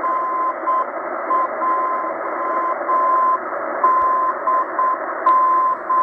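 Morse code (CW) signal on 4251 kHz, received on a Tecsun H-501x shortwave radio set to upper sideband. It comes out of the speaker as a steady beep keyed on and off over band hiss. It spells the call NJDM once: dash-dot, dot-dash-dash-dash, dash-dot-dot, dash-dash.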